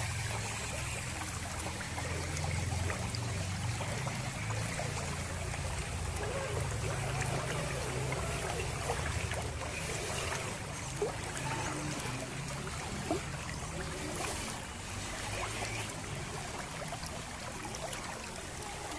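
Shallow stream running and rippling around a scale RC crawler as it wades through, over a steady low rumble.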